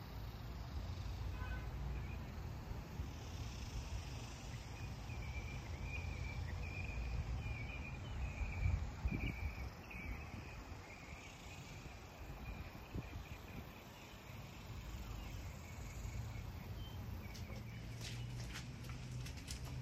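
Outdoor ambience: a low wind rumble on the microphone, with insects chirping in a high, wavering trill through the middle stretch. A few sharp clicks near the end.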